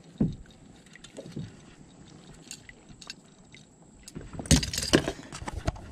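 A small bass being landed into a plastic kayak: faint clicks and handling sounds, then a burst of loud knocks and rustling about four and a half seconds in as the fish is brought aboard.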